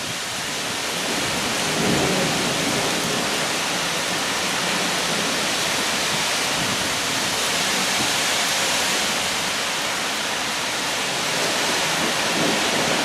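Heavy rain pouring down in a storm: a loud, steady, dense hiss.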